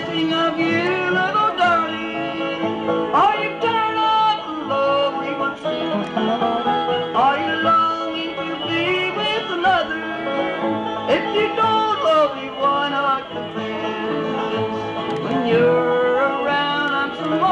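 Bluegrass band playing live: fiddle with sliding notes over banjo and guitar picking and bass.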